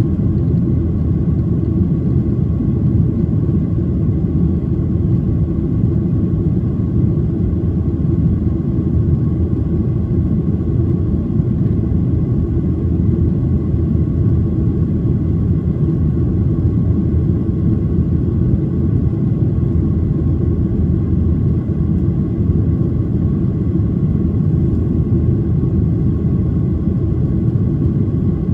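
Steady low rumble of a Boeing 737-800 in flight, its CFM56-7B turbofan engines and the rushing air heard inside the cabin, with a faint steady whine above the rumble.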